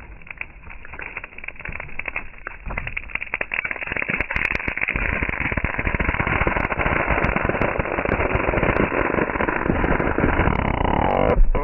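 Hickory tree's hinge wood crackling and popping as the fibres tear while the felled tree tips over. The cracks grow denser and louder, a falling creak comes near the end, and the loudest crack comes last before the sound stops abruptly.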